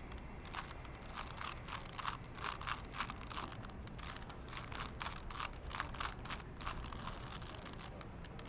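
A 3x3 Rubik's cube being twisted by hand, its plastic layers clicking and clacking in quick, irregular runs of turns.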